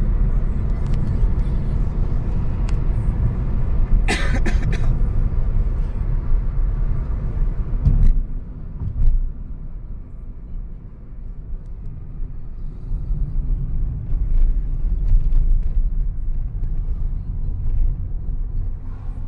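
Car interior road noise: a steady low rumble from the moving car. A brief crackle comes about four seconds in, and the rumble eases after about eight seconds.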